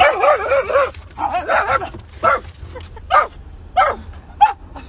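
A dog vocalising: a quick run of wavering, rise-and-fall whining calls in the first couple of seconds, then four short separate cries spaced less than a second apart.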